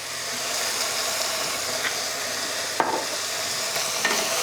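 Tuna and garlic sizzling in olive oil in a pot as they are stirred, a steady frying hiss with a sharp knock of the utensil against the pot a little under three seconds in.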